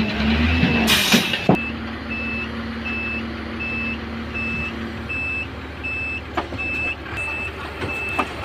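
A tipper truck's reversing alarm beeps steadily, a high beep about twice a second, over a diesel engine running. There is a short hiss about a second in.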